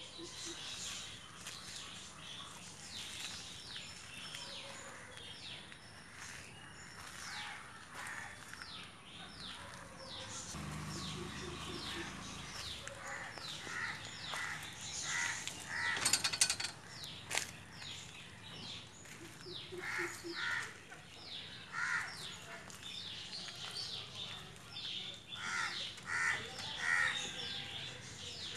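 Faint outdoor birdsong: quick high chirps throughout, and from about halfway in, a bird's short harsh calls repeated in little series, several times.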